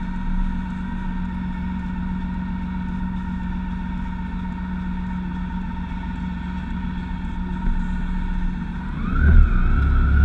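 Motorcycle engine idling steadily at a standstill, then revving up and pulling away near the end.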